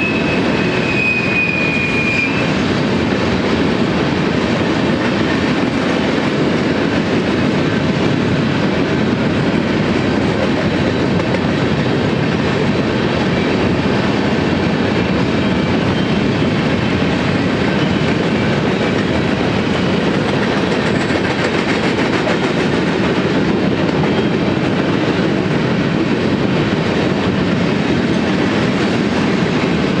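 Freight train of covered hopper cars rolling past close by: a steady rumble and clatter of steel wheels on the rails, with a brief thin high squeal in the first two seconds.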